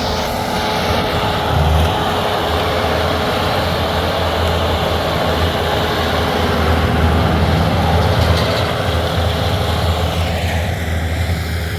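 Bobcat T190 compact track loader's diesel engine running hard while it pushes up a pile of firewood logs, with a steady low engine note under a dense rumble of working machinery. The busier part of the noise eases off near the end.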